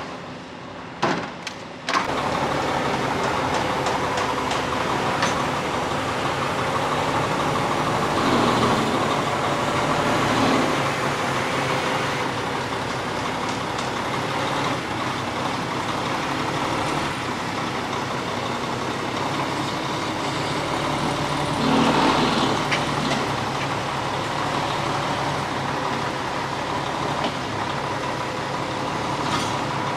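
Heavy truck tractor unit's diesel engine idling, a steady hum that starts about two seconds in after a few short knocks and swells briefly twice.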